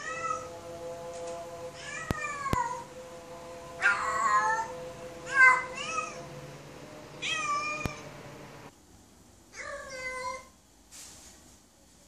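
Female domestic cat in heat calling for a mate: a series of drawn-out, wavering meows, one every second or two, each bending in pitch.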